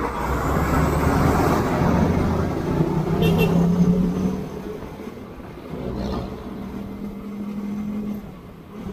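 Motorcycle under way: a steady engine hum under wind and road noise, louder for the first four seconds, then easing off.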